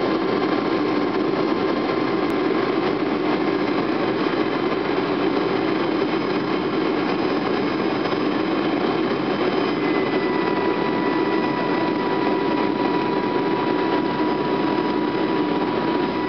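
Cabin noise of a Boeing 757-200 on final approach: steady engine and airflow noise heard through the cabin wall, with a steady high tone that comes up about ten seconds in.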